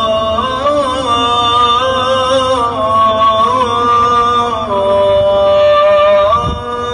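A man's voice chanting in a Middle Eastern melodic style, holding long notes with ornamented turns between them.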